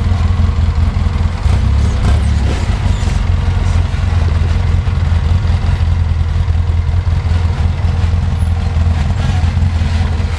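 Polaris RZR side-by-side engine running steadily at low revs while crawling over rock, with a few light knocks about a second and a half to two and a half seconds in.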